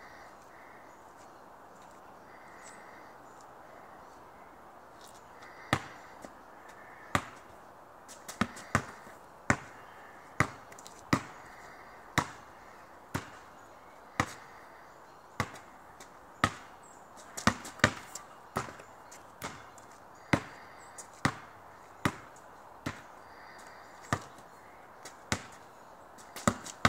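A basketball bouncing on an asphalt driveway as it is dribbled: sharp bounces about once a second, some coming in quick pairs, starting about six seconds in.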